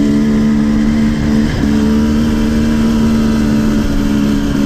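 Dirt bike engine running at a steady speed close by, its pitch dipping briefly about one and a half seconds in.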